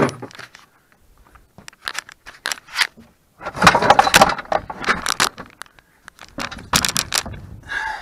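Clinks, rattles and scraping of a Yamaha Rhino 450's seat and its loose latch hardware as the seat is worked free and lifted out. The sounds come in irregular clusters, the loudest about halfway through.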